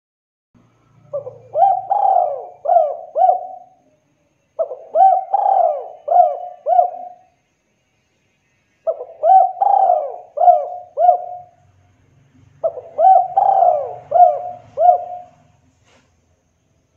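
Spotted dove cooing: four phrases a few seconds apart, each a run of about five arching coos.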